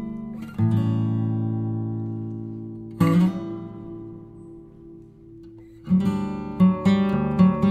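Background music: acoustic guitar chords strummed and left to ring out and fade, with quicker strums starting near the end.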